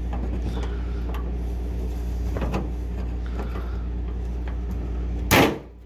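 A screwdriver pries at the steel anti-rattle clip on the exterior door-handle rod at the latch of a 1985 Chevrolet C10 truck door, making small scattered clicks over a steady low hum. About five seconds in comes one loud sharp clack as the clip pops free of the rod.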